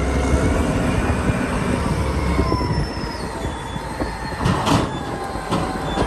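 Caterpillar 992C wheel loader's V12 diesel engine running steadily with a deep rumble and faint gliding whines as it tips a raised bucket of earth into a dump truck. A short louder rush comes about four and a half seconds in.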